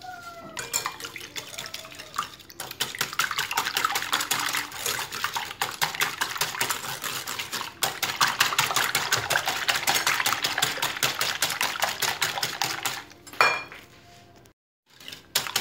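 Wire whisk beating raw eggs in a glass bowl, the wires clicking rapidly against the glass. The beating gets going about two seconds in, breaks off for a moment midway, and stops near the end.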